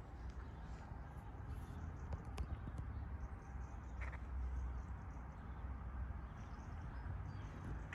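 Footsteps on paving stones, irregular short knocks over a low steady rumble.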